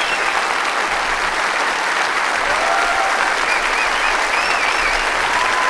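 Large audience applauding steadily, with a few cheering voices or whistles rising above the clapping.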